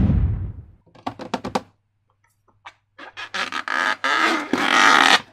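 Slime being squeezed and handled: a noisy burst that fades at the start, a few quick clicks, then from about three seconds in a long run of squelching and crackling.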